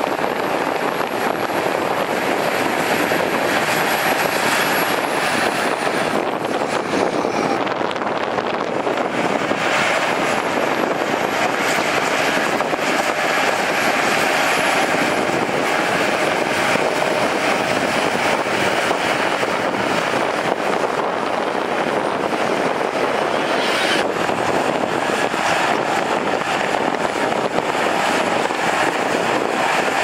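Shantui crawler bulldozer's diesel engine working under load as the machine pushes sand, a steady heavy mechanical noise with no pauses.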